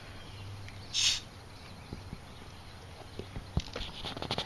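Hands working a plastic soda bottle rig: a short burst of noise about a second in, then a few light clicks and taps near the end.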